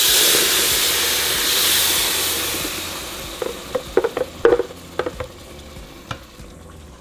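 Blended tomato broth hits hot oil and fried rice in a pressure cooker's pot set to high sauté, setting off a loud sizzle that fades over about three seconds. Then come a few light knocks as a spoon scrapes the last of the broth from the blender jar.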